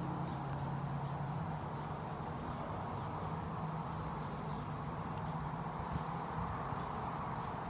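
Honeybees buzzing around an opened hive, a steady hum, with one bee's louder drone close by fading out in the first second or two.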